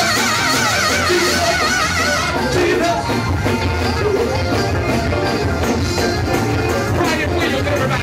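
Live gospel band playing up-tempo praise music with a steady beat and bass. A held, wavering note sounds over it for the first two seconds or so.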